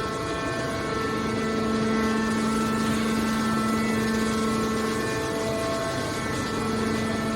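Horizontal hydraulic scrap-metal baler running, a steady machine drone with a constant hum.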